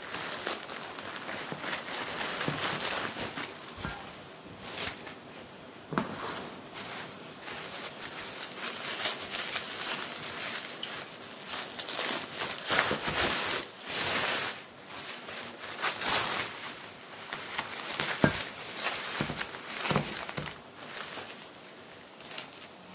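Plastic packaging crinkling and rustling as a parcel is unwrapped by hand: a plastic courier mailer bag, then bubble wrap, then a thin plastic bag, with irregular sharp crackles.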